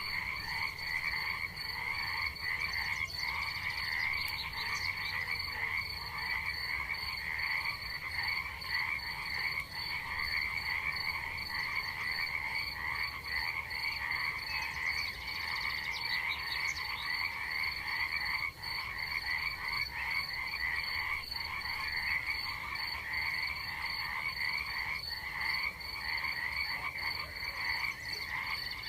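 Night chorus of frogs calling continuously, with a steady high-pitched insect trill running under it.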